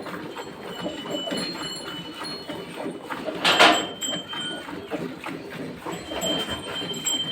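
Dairy farm ambience: short high bird chirps come and go over a background murmur, and a loud, brief hissing burst comes about halfway through.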